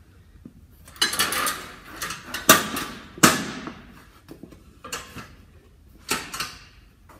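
Metal-framed flat weight bench being dragged and set into place on a rubber gym floor: scraping, then two sharp knocks a little under a second apart, then a few lighter clunks as it is squared up.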